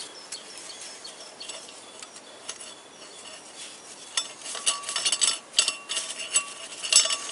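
Steel clinking and scraping as a bolt and a perforated steel locking plate are worked into place against an engine flywheel. Light ticks come first, then from about four seconds in a quick run of ringing metallic clinks.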